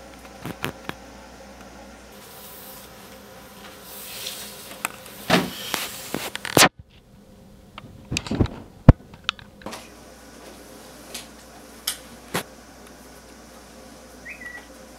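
Room tone in a small room, broken by scattered sharp clicks and knocks, the loudest about nine seconds in. The background cuts out abruptly about seven seconds in.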